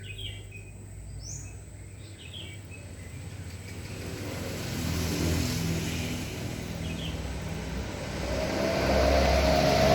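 A motor vehicle's engine approaching, growing steadily louder and loudest near the end, with a few short bird chirps.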